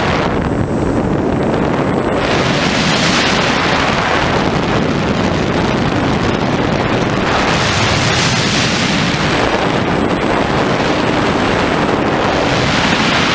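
Loud wind rushing over the microphone of a flying FPV aircraft, surging and easing every few seconds.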